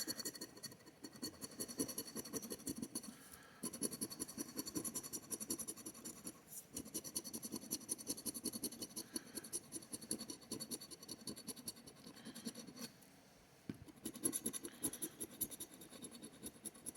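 Scratch-off lottery ticket being scratched in quick repeated strokes, pausing briefly about three and a half seconds in and again just after thirteen seconds.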